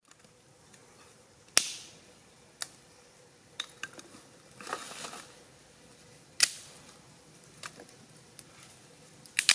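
Dry firewood sticks knocking against each other as they are laid under a stone cooking slab: several sharp, separate knocks, two of them loud, with a brief rustle of dry leaves about halfway through.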